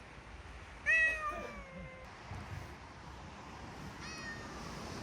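A stray cat meowing twice, begging for food after being told the food is finished. The first meow, about a second in, is loud and falls in pitch as it trails off; the second, near the end, is shorter and fainter.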